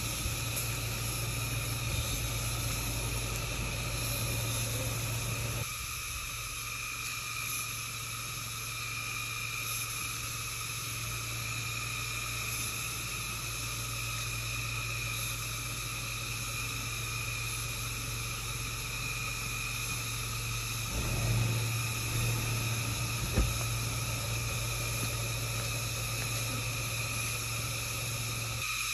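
Steady high drone of forest insects over the low hum of a Ford Escape SUV's engine as it crawls down a dirt trail. A brief swell comes about three quarters through, followed shortly by a single knock.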